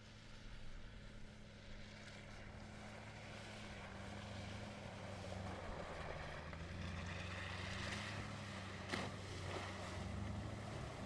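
Mercedes-Benz G-Class's twin-turbo V8 running steadily as the SUV wades through a muddy water crossing, with water sloshing and splashing around the wheels, the whole growing louder as it comes closer. A single sharp click about nine seconds in.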